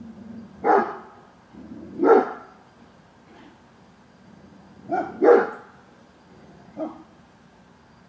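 A dog barking: five loud barks spread out unevenly, two of them close together about five seconds in.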